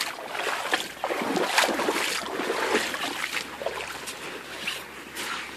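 Rubber boots wading through a shallow sandy creek, with a splash and slosh of water at each step, about one or two steps a second.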